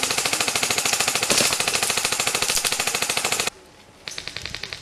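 Airsoft guns firing long full-auto bursts: a rapid, even clatter of shots that cuts off suddenly about three and a half seconds in. A shorter, quieter burst follows near the end.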